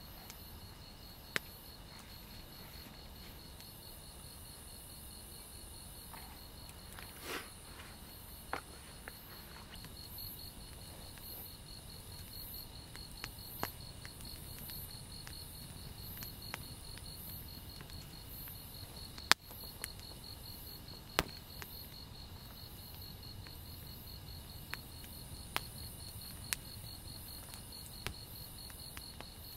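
Insects chirring at a campsite: a steady, fast high trill with a higher chirp repeating about once a second over a low background rumble. Occasional sharp clicks cut through, the loudest about 19 seconds in.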